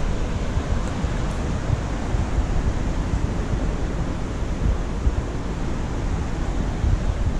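Wind buffeting the microphone: a steady rushing noise with a heavy, shifting low rumble.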